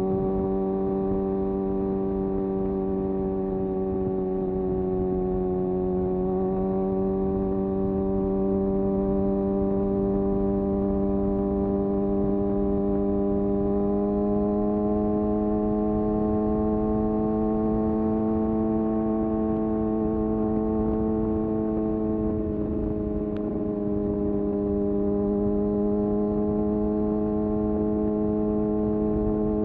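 Kawasaki ZX-6R's inline-four engine running at a steady, held speed while riding, its pitch easing down slightly a few seconds in, rising gently around the middle and dipping again about three quarters of the way through.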